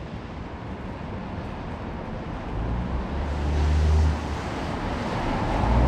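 Deep rumble of a passing vehicle building up, loudest about four seconds in, with a hiss rising alongside it and swelling again near the end.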